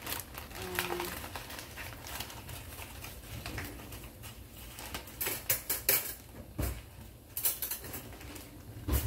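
Large zip-top plastic bag of flour rustling and crinkling as hands open it and dig into the flour. Sharper clicks and taps come in quick clusters about halfway through and again later.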